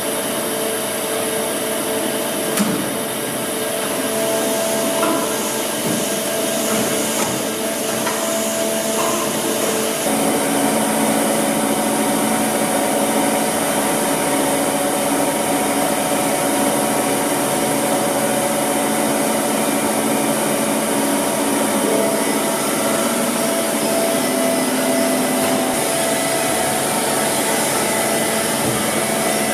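Hyundai Wia KBN-135 CNC horizontal boring and milling machine running: a steady mechanical whir with several steady humming tones, a brief knock a few seconds in, and a slight rise in level about ten seconds in.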